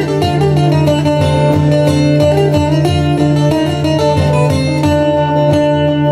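Live Cretan traditional music from a folk ensemble: mandolin, laouto and guitars plucking a lively tune in a quick, even rhythm over a steady low drone, with Cretan lyra and bendir frame drum in the band.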